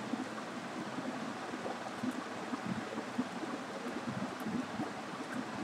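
Quiet room tone: a steady hiss of microphone and room noise, with small, irregular soft ticks scattered through it.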